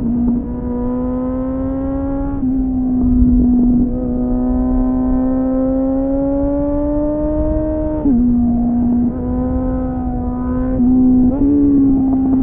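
Suzuki GSF600 Bandit inline-four motorcycle engine heard from onboard through an aftermarket slip-on exhaust with a dB killer. The engine pulls with its pitch slowly rising, drops sharply about eight seconds in, then picks up again with a couple of quick changes in pitch near the end. The owner says the engine runs lean.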